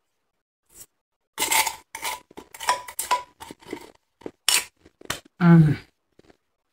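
Finely crushed snow-type ice being chewed, a dense run of crisp crunches, with a metal spoon clinking against a stainless steel tumbler. About five and a half seconds in comes a short hummed 'mmm' with falling pitch.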